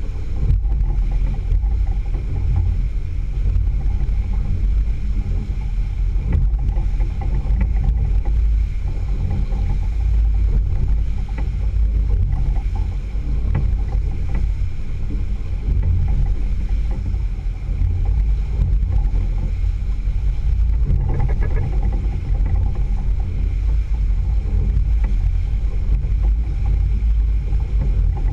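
Small boat under way: the outboard motor runs steadily under a low rumble of wind on the microphone and water rushing past the hull.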